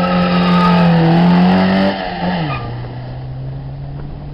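Opel Manta's engine held at high, steady revs for a launch, then the revs drop about two seconds in and settle to a lower steady note.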